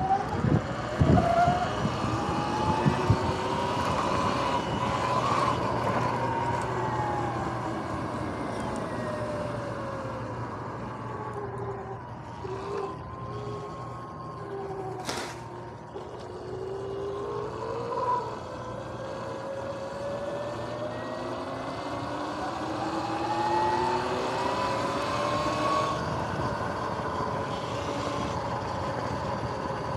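Sur-Ron X electric dirt bike's motor whine, several tones rising in pitch as the bike speeds up, falling as it slows, then rising again, over tyre and wind noise. A few knocks in the first few seconds and one sharp click about halfway through.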